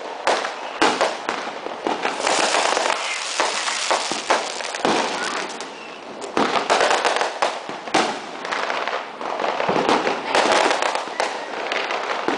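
Fireworks going off in a dense, almost continuous run of bangs and crackling, easing briefly about five to six seconds in before building again.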